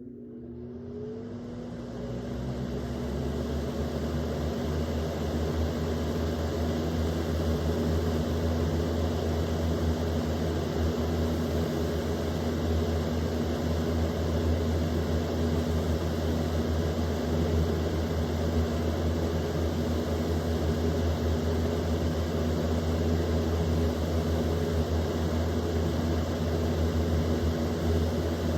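Easy Home electric box fan switched on at high speed: the motor spins up with a rising tone over the first couple of seconds, then settles into a steady motor hum with rushing air.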